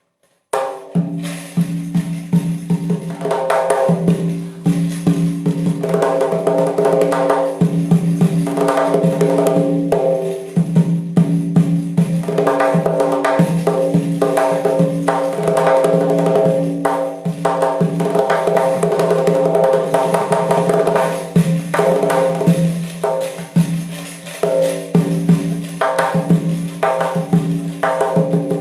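Doira frame drum played in fast, dense rhythmic strokes with its jingling rings, over steady held notes from an accompanying instrument.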